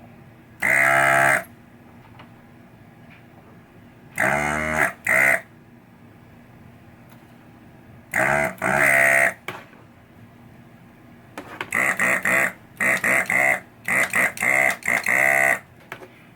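A man's voice singing or humming wordlessly in short phrases, each a second or so long. The phrases come in three separate bursts, then a quicker run of short ones in the last few seconds.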